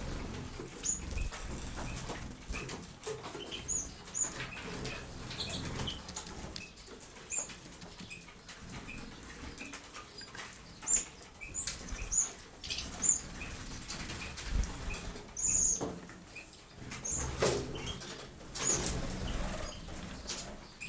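Small pet birds bathing, fluttering their wings in the water with repeated quick flurries, while short high chirps sound now and then.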